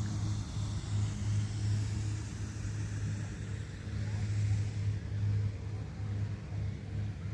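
A motor vehicle going by: a steady low rumble with a high hiss that fades out about five seconds in.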